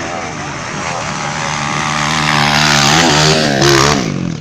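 Dirt bike engine running under throttle, its pitch rising and falling. It grows louder toward the end, then drops off abruptly.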